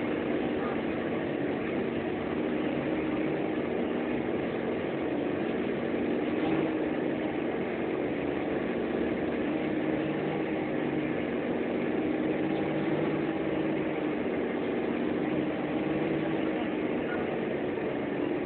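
Bus engine running at a steady speed while under way, heard from inside the cab together with road noise, an even drone with no change in pitch.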